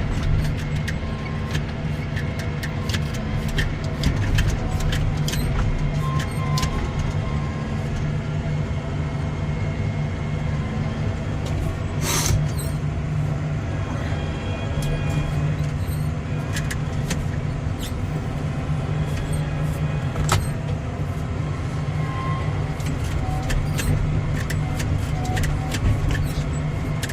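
Tractor engine running steadily while unrolling a hay bale, with frequent short clicks and rattles and one sharper clank about midway.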